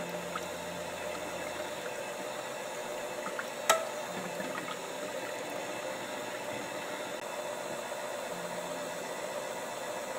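Electric KitchenAid hand mixer running steadily, its twin beaters whipping fresh cream and condensed milk that has not yet thickened. There is one sharp click about four seconds in.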